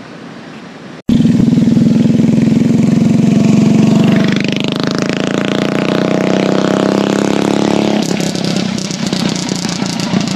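A petrol engine running loud, cutting in suddenly about a second in, with a rising rev about halfway through and a rougher, choppier running near the end.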